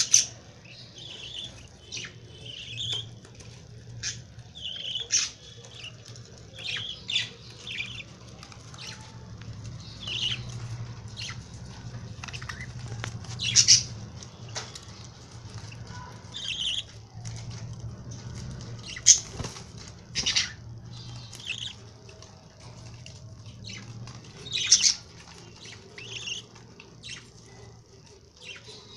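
Young lovebirds chirping and squeaking in short, sharp calls scattered irregularly, with a few louder squawks and wing flapping.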